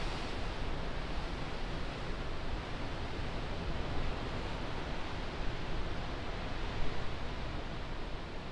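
Steady rushing noise of wind and distant sea surf, with a low rumble from wind on the microphone.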